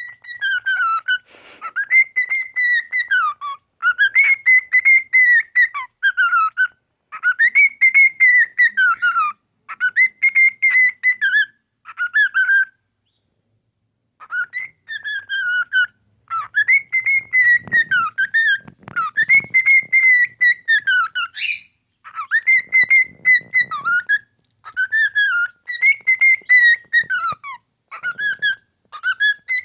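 Male cockatiel singing right at the microphone: a warbling whistled song of repeated phrases, with short gaps between them and one longer pause about halfway through.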